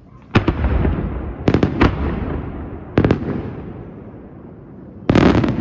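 Senatore Fireworks aerial shells bursting overhead: a sharp report about a third of a second in, two more close together around a second and a half, another at about three seconds, each trailing off in a rolling echo, then a quick run of several bursts near the end.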